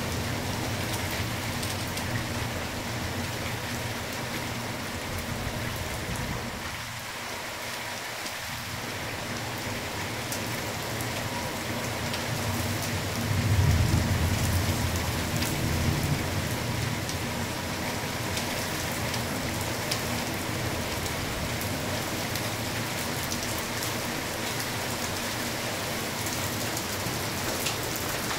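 Heavy rain pouring steadily during a storm, with a low rumble swelling for a few seconds about halfway through.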